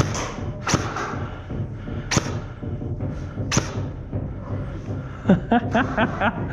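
Airsoft electric rifle firing single shots: three sharp cracks about a second and a half apart, then a quick run of clicks with short squeaky sounds near the end.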